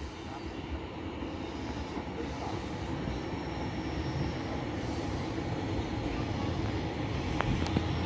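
Class 143 Pacer diesel multiple unit running into the platform, its engine and wheel noise growing steadily louder as it nears, with a thin high squeal from the wheels coming and going.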